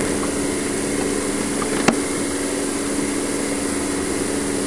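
A steady machine hum with an even rushing noise, as from a small motor running, and one sharp click about two seconds in.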